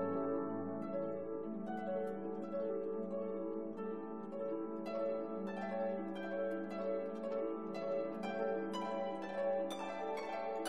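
Background instrumental music: a gentle melody of plucked, harp-like notes, about two notes a second over sustained lower tones.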